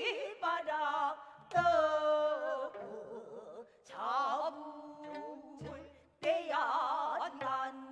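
Gayageum byeongchang: a woman sings long, wavering pansori-style vocal lines while plucking a gayageum, its plucked notes bent in pitch, with a few deep plucks about 1.5, 4 and 6 seconds in.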